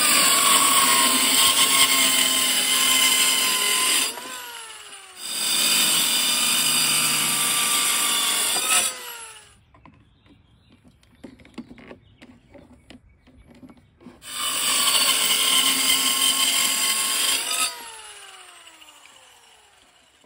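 Electric power saw cutting wooden boards in three runs of a few seconds each, its motor whining down after each cut. Between the second and third cuts there is a quiet spell with a few light knocks.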